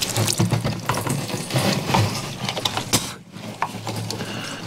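Diesel being siphoned by mouth through a hose: sucking on the hose to get the flow going, with gurgling, splashing liquid noise and clicks of the hose being handled.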